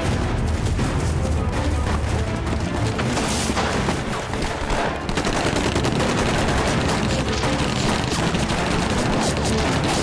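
Heavy battle gunfire: rapid, overlapping rifle and machine-gun shots in a dense fusillade, with booms among them, over background music.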